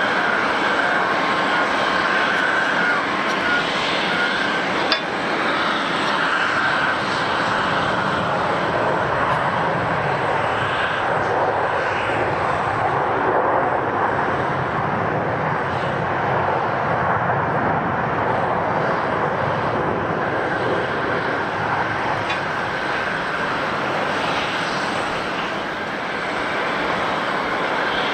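Airliner jet engines running at an airport, a steady rushing noise with a thin high whine in the first few seconds.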